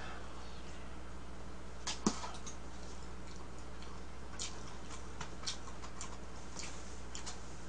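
Scattered light clicks and taps of a spoon against a plastic food tub while eating porridge, with one sharper knock about two seconds in, over a steady low electrical hum.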